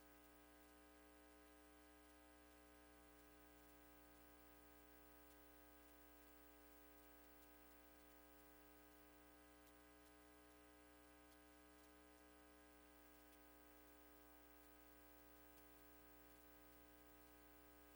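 Near silence: a faint, steady electrical hum and hiss of the broadcast feed.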